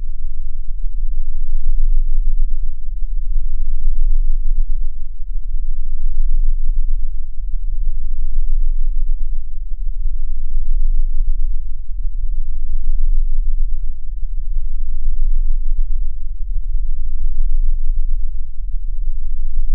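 A deep, loud rumbling drone that swells and eases slowly every few seconds, with a faint steady high whine above it.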